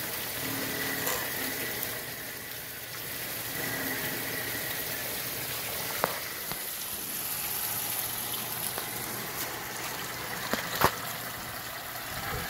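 Steady rush of running water from a koi pond's pump-fed water feature, with a faint on-and-off motor whine. Two sharp knocks, one about halfway through and a louder one near the end.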